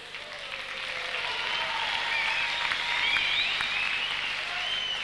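Arena audience applauding after a point, building over the first second or two and easing off toward the end, with a few high calls rising above the clapping.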